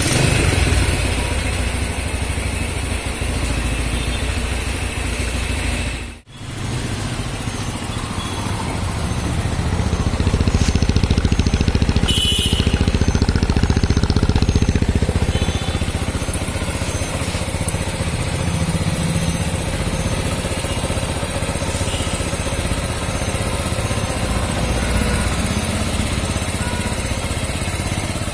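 Yamaha Enticer's single-cylinder four-stroke engine running on a Honda CG125 carburettor fitted in place of the stock one. The sound breaks off sharply for a moment about six seconds in. It runs louder for several seconds around the middle.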